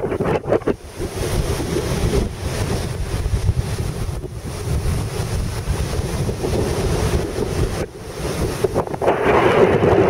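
Strong gusting wind buffeting the microphone, over heavy surf breaking on the shore, with a louder rush near the end.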